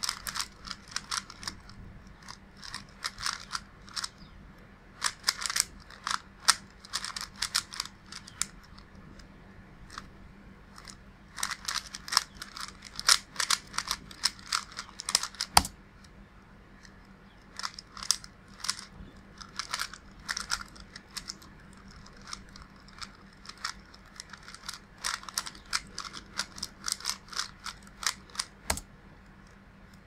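A 30th Anniversary Rubik's Cube's plastic layers clacking and scraping as they are turned in fast bursts of finger moves, with short pauses between. The cube has only a few drops of Silk lube and still turns stiffly, like an unlubed budget cube. A single sharp tap about halfway through as the solve ends.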